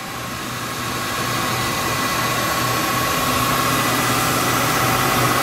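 Steady machine hum and hiss with a thin whine, from a powered-on Fadal VMC 4020HT vertical machining center, growing a little louder over the first couple of seconds and then holding even.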